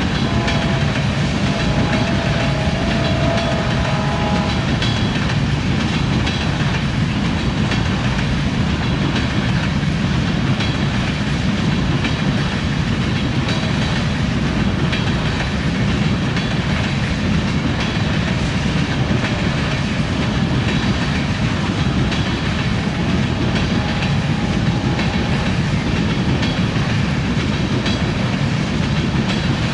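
Freight train of railroad tank cars rolling past: a steady, loud rumble of steel wheels on rail with clickety-clack over the rail joints.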